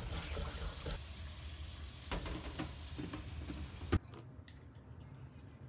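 Wet kitchen noise of minced sardine paste being worked by hand in a bowl, a steady hiss with soft knocks. About four seconds in it cuts off to a quieter room with a few light taps.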